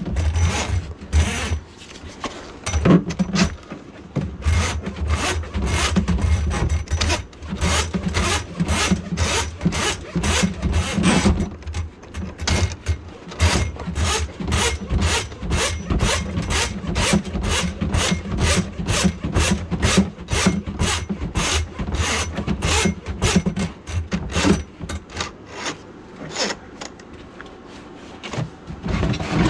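Drum-type drain cleaning machine working a grease-clogged kitchen drain line: its spring steel cable rasps and clicks through gloved hands and a rag, a couple to a few scrapes each second, over a low motor hum that drops out for a while partway through and again near the end.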